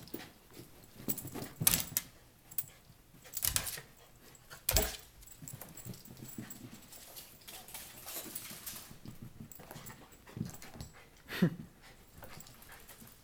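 Small dog scrambling after a laser dot on carpet, with several sharp thumps as it lunges and a short falling whimper near the end.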